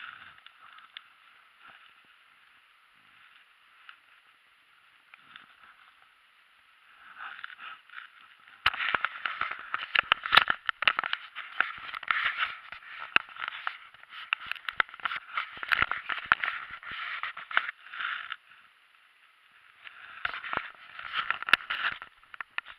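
Scraping, rubbing and clicking on an action camera's muffled housing as the camera is handled and moved about. It comes in two irregular spells, one of about ten seconds beginning a third of the way in and a shorter one near the end, with near quiet between them.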